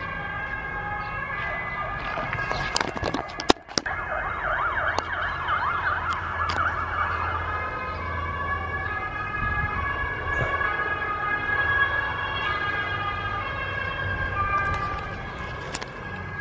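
Emergency vehicle siren sounding, with a fast warbling yelp from about four seconds in that gives way to steadier held tones. A few knocks, likely the microphone being handled, come just before the yelp.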